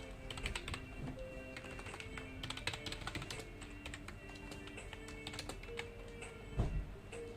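Typing on a computer keyboard: quick runs of keystroke clicks with short pauses, and one heavier thud near the end. Soft background music of held notes plays underneath.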